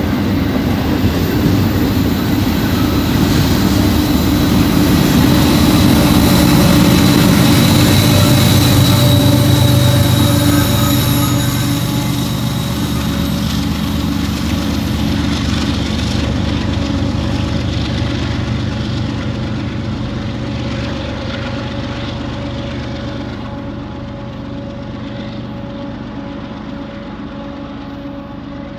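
BNSF double-stack container train passing: steel wheels rumbling on the rails, with a thin high squeal from the wheels on the curve over the first ten seconds or so. Diesel locomotives at the rear of the train then go by with a steady engine hum, and the sound slowly fades as they pull away.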